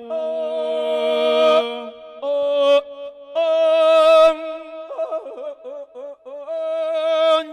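A monk's voice singing an Isan lae sermon chant through a microphone, drawing out long held notes in several phrases with short breaks between them.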